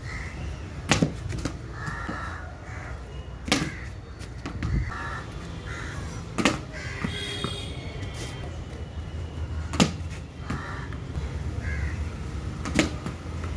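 Five sharp knocks of a wooden cricket bat striking a ball, about one every three seconds during batting practice, with crows cawing between the shots.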